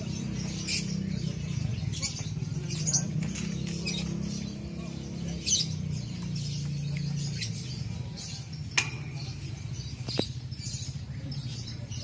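Lovebirds chirping in many short, high, rapid bursts over a steady low murmur of background voices. Two sharp clicks near the end.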